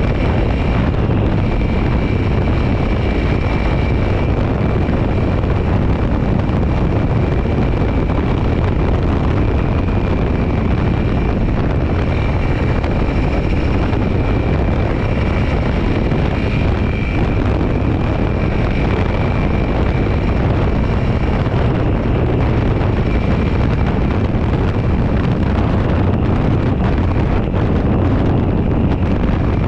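Motorcycle cruising steadily at about 70 to 80 km/h on a gravel road: the engine runs under heavy wind noise on the camera microphone, with a faint high whine held steady throughout.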